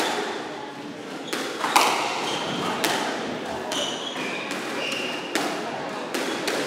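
Squash doubles rally: the ball struck by racquets and smacking off the court walls, sharp hits about once a second, with short high squeaks of shoes on the wooden court floor.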